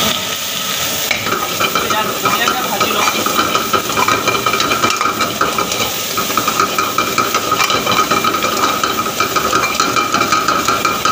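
Metal ladle scraping and knocking rapidly against a steel wok as chopped garlic, ginger and onion sizzle in hot oil over a high gas flame, with a steady hum underneath.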